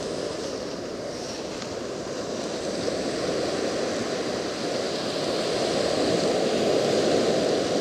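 Ocean surf breaking and washing up the sand, a steady rush of water that grows a little louder about five seconds in.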